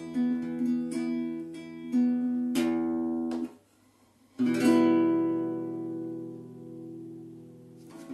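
Acoustic guitar ending a song: fingerpicked chord pattern, then a strummed chord about two and a half seconds in that is damped short. After a second's pause, a final strummed chord rings out and slowly fades away.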